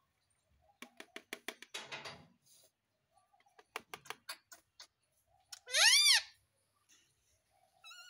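Indian ringneck parrot making runs of rapid clicking chatter about a second in and again near the middle, then one loud call that rises and falls in pitch about six seconds in.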